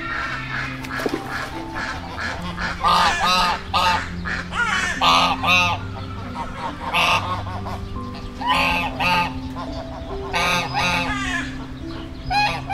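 A flock of American wigeons calling: loud whistled calls in quick pairs or threes, repeating about every one and a half to two seconds, over soft held tones of background music.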